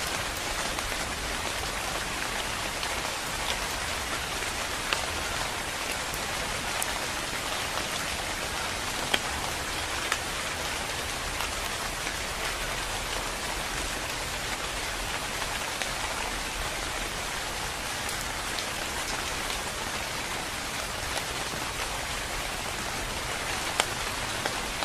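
Steady rain falling on tree leaves, an even hiss with a few sharper drop ticks here and there.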